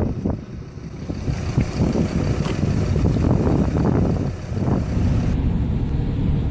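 Wind buffeting the microphone over a running car engine. About five seconds in, after a cut, it changes to the steady road and engine noise inside a moving car.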